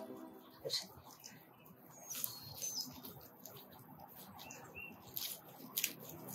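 Hands working in a garden bed, rustling soil and handling drip irrigation tubing, with a few sharp clicks and taps. A bird chirps a few short calls in the background.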